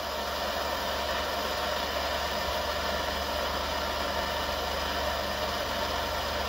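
Handheld gas torch on a propane-mix canister burning with a steady hiss as its flame heats a steel bolt toward a dull cherry red.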